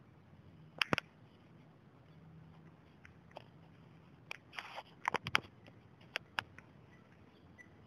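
Footsteps crunching on grit and debris on a concrete floor: scattered sharp crunches and clicks, a pair about a second in and a quick cluster between about four and six and a half seconds in.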